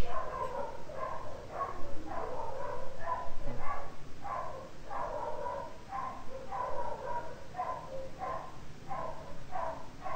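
An animal calling over and over, about two short calls a second.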